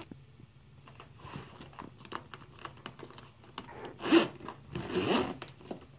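Plastic packaging crinkling and rustling with scattered small clicks and taps as a hard-shell drone carrying case is handled, with two louder rustles about four and five seconds in.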